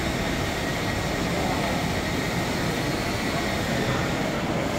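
Steady background rumble and hiss of an indoor concrete car park, with a faint steady high tone above it.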